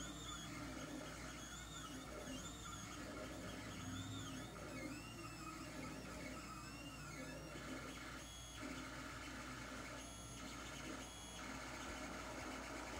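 Lulzbot TAZ 3 3D printer running a print: its stepper motors whine in short arcs that rise and fall in pitch as the print head and bed move, over a steady hum. Near the end come three brief moves, each an even whine.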